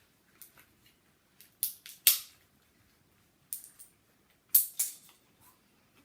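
Walnut shells cracking: a series of sharp cracks and snaps, loudest about two seconds in and again about four and a half seconds in.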